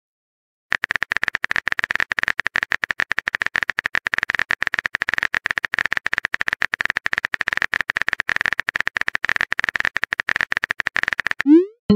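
Phone keyboard typing sound effect: rapid, even clicks, many a second, as a text message is typed out, starting just under a second in. Near the end a short rising swoosh plays as the message is sent.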